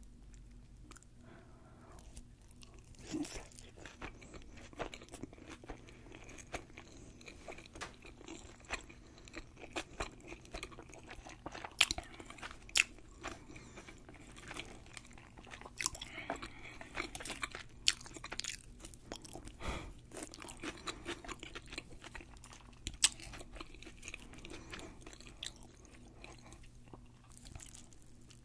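A person chewing a bite of deep-fried sushi roll, its fried crust crunching in irregular sharp crackles that start about three seconds in.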